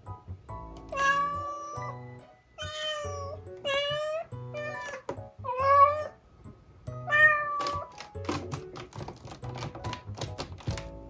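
Tortoiseshell cat meowing repeatedly, about five drawn-out meows, over background music. A run of quick clicks follows near the end.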